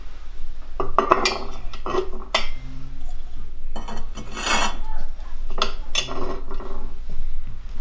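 Enamelware set down on the iron top of a wood-burning kitchen stove: a bowl and an enamel milk can clattering and knocking against the stove plate several times, with a longer clatter about halfway.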